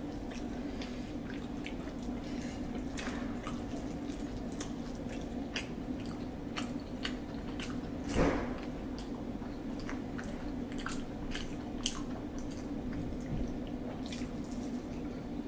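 Quiet eating at a table: chewing and scattered light ticks and taps of fingers picking rice off plates, over a steady low hum, with one louder knock about eight seconds in.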